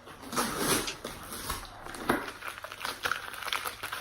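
Paper and packaging rustling and crinkling in irregular bursts as a cardboard box of packed items is unpacked by hand.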